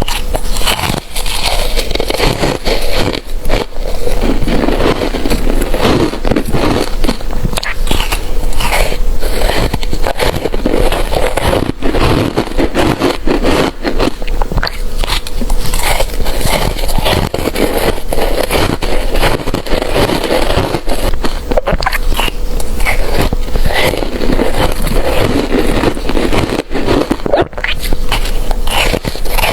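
A person biting and chewing ice close to the microphone, a dense run of crunching and crackling with many sharp cracks.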